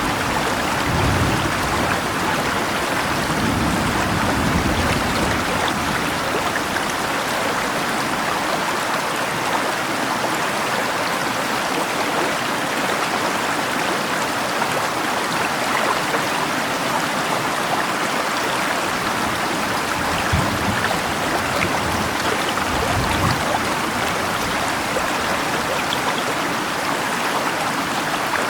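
Steady rushing of a river or stream mixed with falling rain. There are soft low rumbles in the first few seconds and again about two-thirds of the way through.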